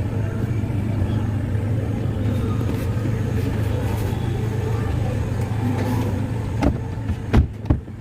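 Tata Tiago running, a steady low hum, with a few sharp knocks near the end.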